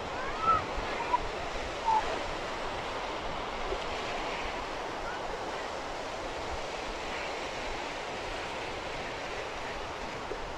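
Small sea waves breaking and washing over shoreline rocks: a steady rush of surf. A few brief high-pitched cries stand out in the first two seconds.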